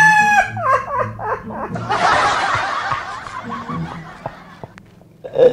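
A man imitating the Joker's laugh: a high held cackle that breaks into shorter laughs, then a breathy stretch that fades out about four seconds in.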